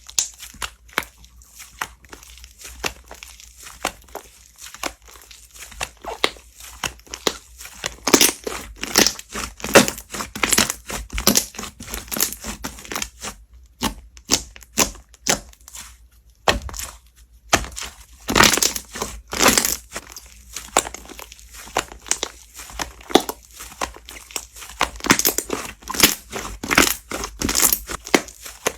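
Slime being squeezed and pressed by hand, giving a fast, irregular run of crackling, popping and crunching sounds. It stops briefly twice near the middle.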